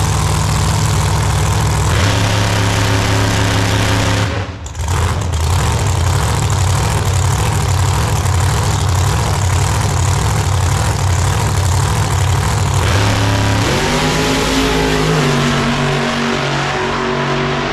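A loud vehicle engine running with a steady low note, briefly dropping out about four seconds in. About fourteen seconds in its pitch rises and then holds at a new, steady level.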